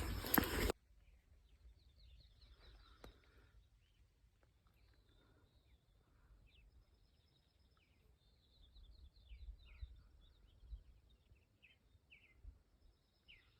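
Faint birds chirping, scattered short high chirps over a quiet background.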